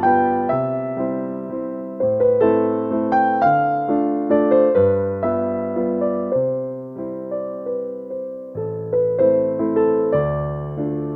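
Background music: a gentle solo piano piece, with chords and melody notes that strike and fade over a recurring bass note.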